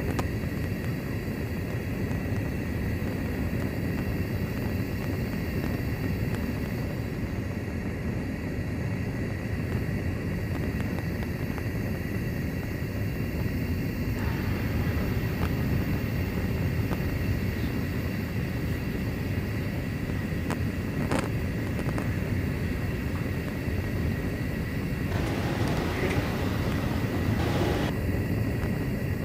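Wire-insulation extruder running with an open gas burner flame heating its head: a steady low roar with a thin, steady high whine over it and a single sharp click near the middle.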